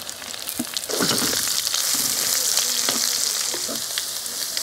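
Chopped onions sizzling in hot coconut oil, the sizzle swelling about a second in as they hit the oil and then holding steady, while a wooden spatula stirs and scrapes them around the pot.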